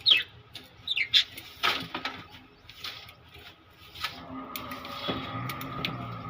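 Pet lovebirds chirping: short, sharp calls that slide down in pitch, a couple near the start and more around a second in, with scattered small clicks and rustles.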